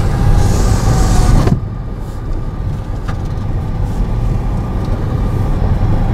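A car driving over a rough dirt road, with a heavy low rumble for about the first second and a half, then a steadier, quieter rumble.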